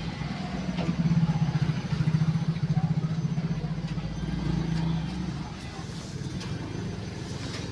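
A vehicle engine running close by with a low, pulsing hum. It swells for a few seconds in the middle, then eases off.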